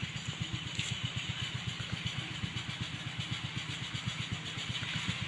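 Engine running at a steady speed, a fast even low chugging beat.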